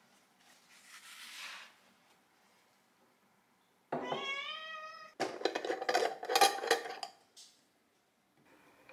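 A soft brushing rustle as the spiral notebook is moved on the table, then a cat meows once, a drawn-out call of about a second with a bending pitch. Right after, the glass jar's metal screw lid is twisted off and the gummy candies inside clink and rattle, the loudest part.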